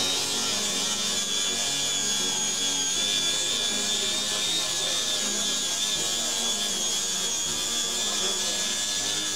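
AEG BEWS 18-125X 18-volt cordless angle grinder running at full speed and grinding a workpiece: a steady high whine over continuous rasping.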